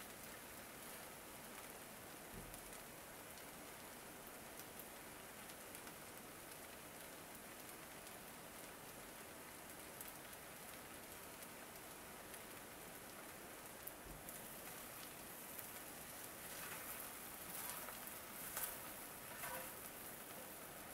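Char koay teow noodles sizzling steadily in a hot Lodge cast iron skillet. In the last few seconds a wooden spatula stirs through the noodles, adding louder scraping and clicks.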